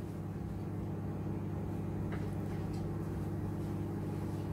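Microwave oven running with a steady low electrical hum. A faint single tap about two seconds in, a kitchen knife touching the plastic cutting board.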